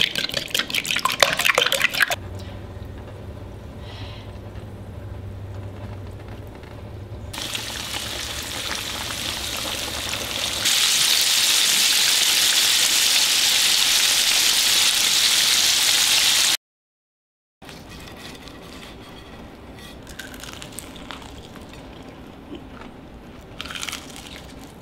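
Eggs beaten with a fork in a glass bowl, a quick clinking, then bone-in chicken deep-frying in oil in a cast-iron pot: a steady sizzle that builds and is loudest for about six seconds before cutting off abruptly. After a second of silence, faint room sound with a few small clicks.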